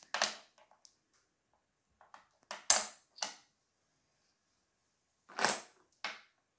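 Small wooden toy fish from a fishing game clacking against each other and onto the table: a handful of short clicks and clatters with quiet gaps between them.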